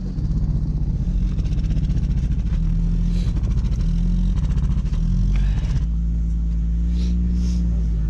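Car engine revving under load as the car, stuck in snow, is pushed up a hill; the revs rise and drop a few times, then hold steadier for the last couple of seconds.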